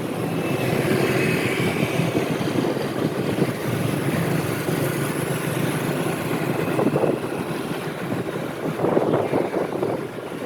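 Motorbike engine running steadily while riding, under constant wind rushing over the microphone, with a couple of louder gusts near the end.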